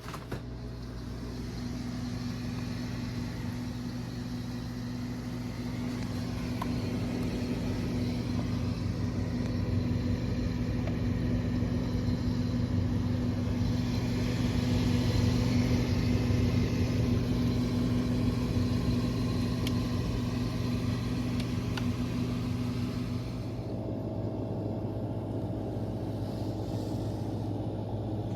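35-year-old Hotpoint refrigerator running, its compressor giving a steady low hum. About 23 seconds in the tone of the hum changes and some of the higher hiss drops away.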